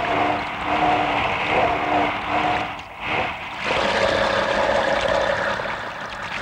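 Minibus driving through a flooded dirt road, water splashing and rushing around its wheels over the running engine. In the first half a run of short pitched tones sounds over it.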